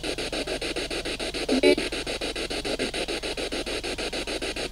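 Ghost box (spirit box) sweeping through radio stations: static chopped into rapid, even pulses about ten a second, with a brief snatch of a radio voice about one and a half seconds in.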